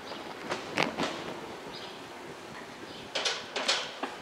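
A moving bicycle knocking and rattling: a few sharp knocks in the first second, then two louder clattering bursts about half a second apart near the end.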